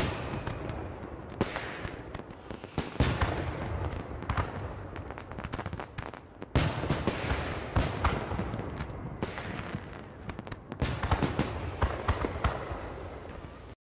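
Fireworks display: a dense run of bangs and crackles, with heavier booms about three seconds in, about halfway through and again near the end. The sound cuts off suddenly just before the end.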